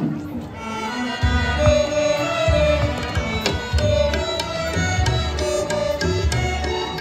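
Live music from a children's ensemble of violins and keyboard, starting about half a second in, with a low drum beat joining about a second in.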